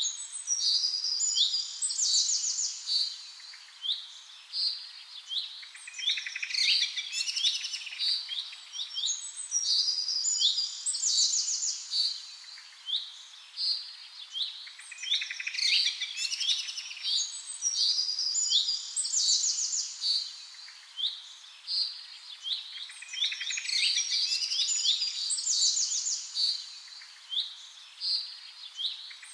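Songbirds chirping and singing together in a dense chorus of high, quick chirps and rapid trills that overlap one another.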